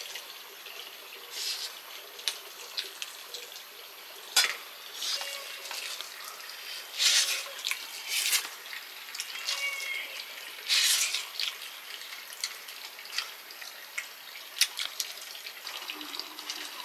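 Water splashing and pouring in a few short bursts, with scattered clicks and knocks.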